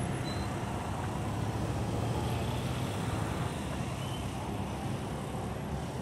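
Steady low rumble of road traffic, vehicle engines running without a break.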